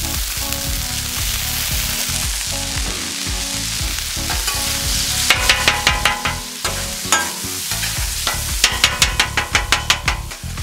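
Ground beef hissing and sizzling on a hot Blackstone griddle after a squirt of water, which flashes to steam. From about five seconds in, a metal spatula chops and scrapes the beef against the griddle's steel top in runs of quick clicking strokes.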